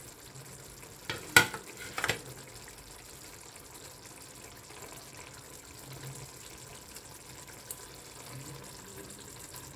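A metal ladle stirring a thick curry gravy in a frying pan, knocking sharply against the pan a few times between about one and two seconds in. The gravy then simmers with a soft, steady bubbling.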